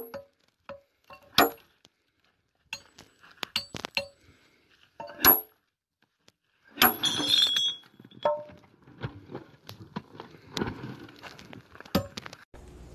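A sledgehammer striking a row of steel wedges driven into drilled holes in a quarry stone block: sharp, ringing metallic clinks a few seconds apart. About seven seconds in comes a longer grating crack, then scattered knocks and crumbling as the block splits along the wedge line and breaks away.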